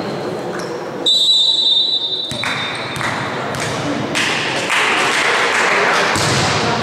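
Referee's whistle blown once for about a second early on, over players' shouts and echoing gym noise, followed by a few knocks of a volleyball as the server readies and jump-serves near the end.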